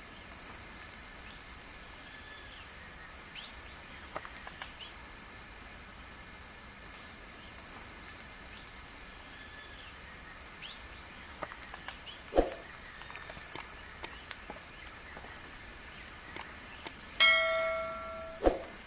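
Outdoor nature ambience: a steady high-pitched drone under scattered small clicks and a few faint, distant bird calls. There is a sharp knock about two-thirds of the way through. Near the end comes a bell-like ring with several clear pitches that dies away over about a second.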